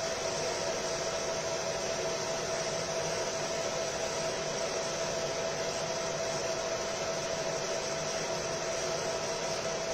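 Fiber laser marking machine running: a steady whir with a constant tone held through.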